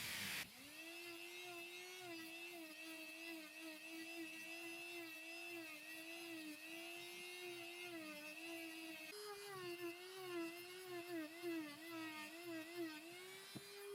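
Electric motor of a small power tool running with a steady whine, its pitch dipping and wavering slightly as it works under load. About nine seconds in the sound breaks and comes back at a slightly higher pitch.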